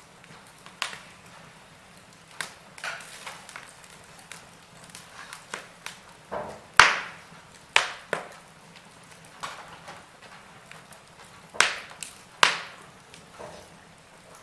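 Wood fire burning in a fireplace, crackling with irregular sharp pops and snaps over a faint hiss; the loudest pops come about seven seconds in and twice near twelve seconds.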